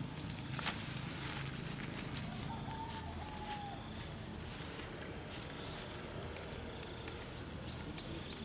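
Insects buzzing steadily at a high pitch, a constant two-tone drone. A few rustles of feet through grass and weeds come in the first second.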